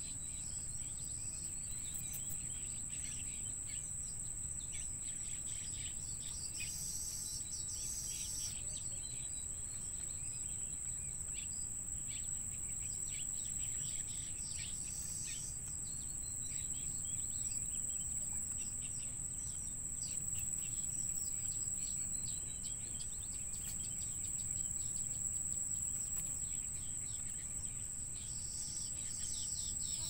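Steady high-pitched insect drone, like crickets, with many short bird chirps scattered through it, over a low rumble.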